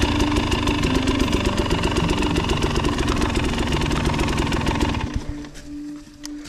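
Dirt bike engine running at low, steady revs, then dropping off sharply about five seconds in to a much quieter idle.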